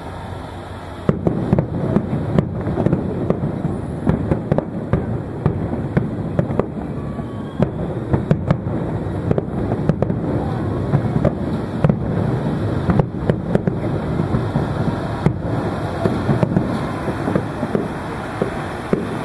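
Fireworks display: aerial shells bursting in a rapid barrage, sharp bangs over a dense rumble of explosions, starting suddenly about a second in.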